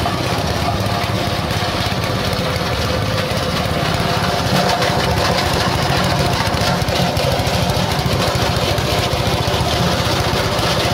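Small petrol engine running steadily, driving a coconut-husk shredder that is grinding husks into coir fibre and cocopeat.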